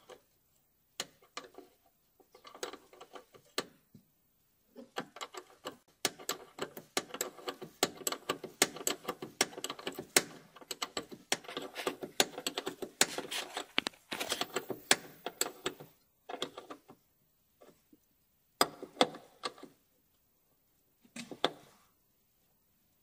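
Rapid metallic clicking and tapping of a wrench working the union nut of a new brake hose as it is tightened. The clicks come in short bursts, with one long busy run through the middle.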